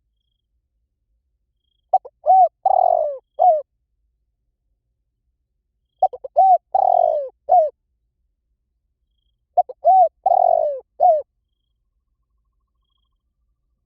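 Spotted dove cooing: three call phrases about four seconds apart, each a quick run of coos lasting about a second and a half.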